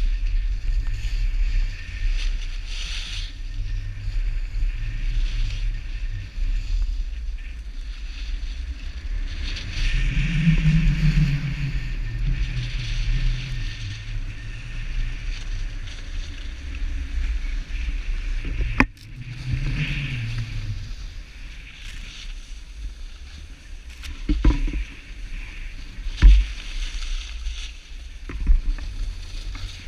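Skis sliding and scraping over packed snow, swelling with the turns, over a steady rumble of wind on a pole-mounted action camera's microphone. A few sharp knocks come near the end.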